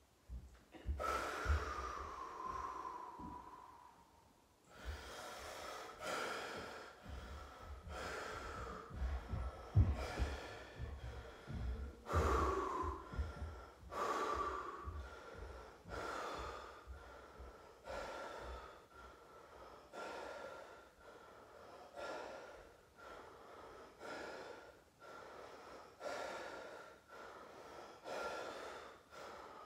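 A man breathing heavily and deliberately through the cold of an ice bath: a long drawn-out exhale about a second in, then a strong breath roughly every two seconds.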